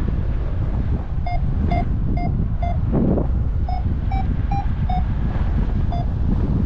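Paragliding variometer beeping its climb tone: short even beeps about two a second, rising slightly in pitch midway, the sign that the glider is climbing in lift. Steady wind rushing over the microphone underneath, with a louder gust about three seconds in.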